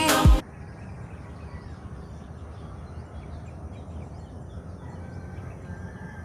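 A gospel song with singing cuts off abruptly about half a second in, leaving steady outdoor ambient noise with faint bird chirps.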